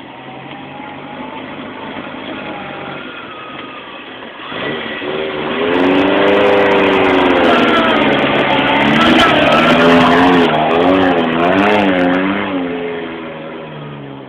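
A trials car's engine working up an off-road hill section, getting louder about four seconds in, its revs rising and then wavering quickly up and down as it climbs, before fading away near the end.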